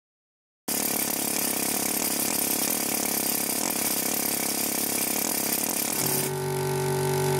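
Parkside PKO 500 A1 air compressor running, its pump recharging the 50-litre tank from 8 to 10 bar. The steady machine noise starts abruptly under a second in, and about six seconds in it changes, the hiss dropping away and a steadier humming tone coming up.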